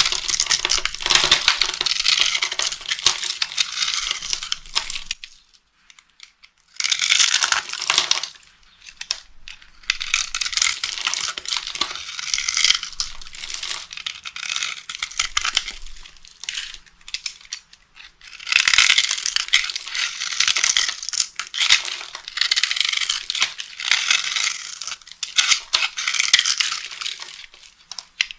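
Dry soap being crushed and crumbled, a dense, dry crackling crunch in spells of several seconds with short pauses between.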